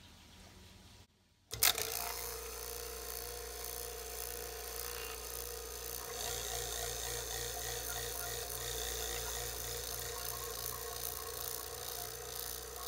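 HVAC rotary-vane vacuum pump starting with a sudden jump in level about a second and a half in, then running steadily with a constant hum, evacuating a sealed jar of water.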